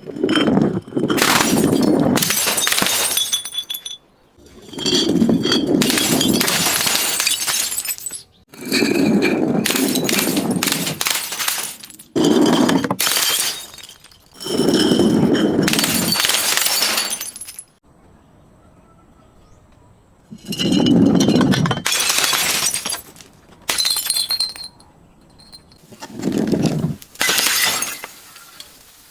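Glass bottles breaking and being crushed: about nine bouts of crunching and shattering, each one to three seconds long, with shards clinking and ringing between them.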